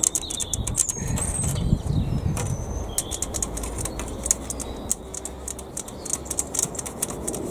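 Rigid clear plastic panel being handled against an aluminium cold frame, giving many small sharp clicks and rattles over a low rumble, with a few short high bird chirps.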